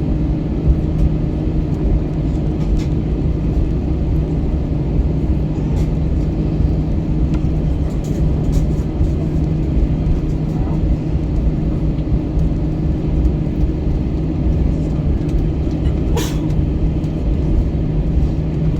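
Steady drone of an Airbus A321's jet engines heard inside the passenger cabin, a low rumble with a hum held on two even pitches. A single brief sharp click comes near the end.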